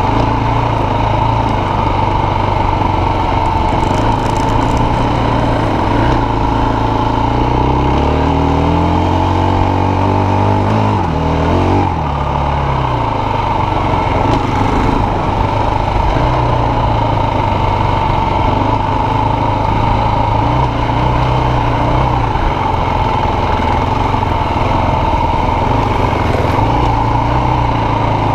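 Enduro motorcycle engine running under way on a dirt trail. Its revs climb steadily for a few seconds in the middle, drop off sharply about twelve seconds in, then settle back to a steadier note.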